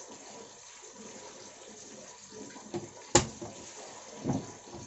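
Sliced onions and shahi jeera sizzling steadily in hot oil. A single sharp click about three seconds in is the loudest sound.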